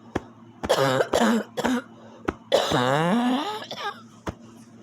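A person coughing harshly: a quick run of coughs about a second in, then a longer, drawn-out cough with the voice in it, from a choking, tight-chested feeling.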